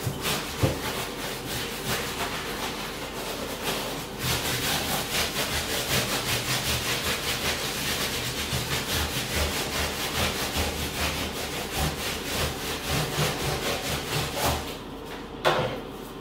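Brisk hand scrubbing of a bathtub floor and its textured rubber bath mat: a rasping, rhythmic scrape of quick, even back-and-forth strokes, with a short break about four seconds in and a slowdown near the end.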